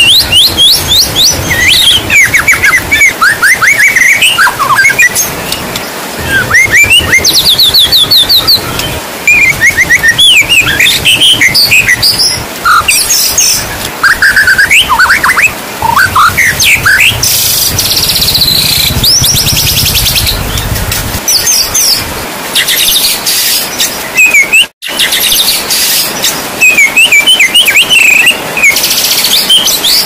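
White-rumped shama (murai batu) singing a varied song of quick rising and falling whistles and fast trills, over the steady hiss of falling rain. The sound cuts out for an instant about three-quarters of the way through.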